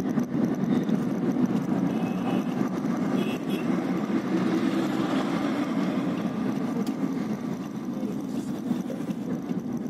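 Steady road and engine noise of a moving vehicle, heard from on board as it drives along a city road.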